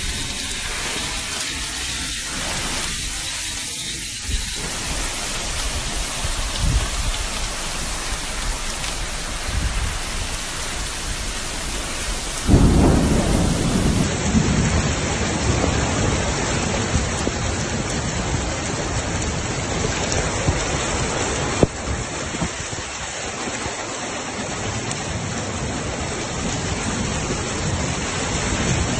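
Heavy rain pouring down onto floodwater, a steady hiss. About twelve seconds in, a loud deep rumble sets in and carries on under the rain.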